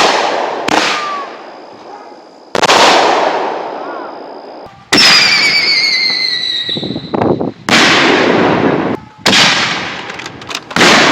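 Consumer aerial firework shells bursting: a string of about seven loud bangs, each trailing off in a long echoing rumble. About five seconds in, a warbling whistle falls slowly in pitch.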